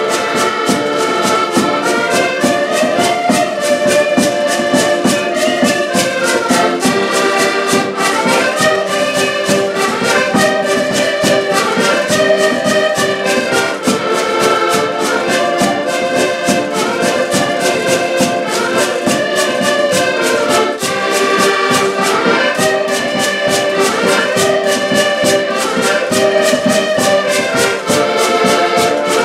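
Several diatonic button accordions (Portuguese concertinas) playing a lively folk tune together, with a fast steady percussive beat under the melody.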